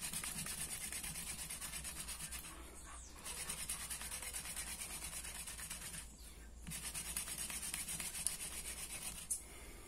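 Hand drill spindle twisted rapidly back and forth in the notch of a wooden hearth board: a fast, rhythmic wood-on-wood scraping friction, the drilling that heats the wood toward an ember. It comes in three runs, broken by short pauses about three and six seconds in and near the end.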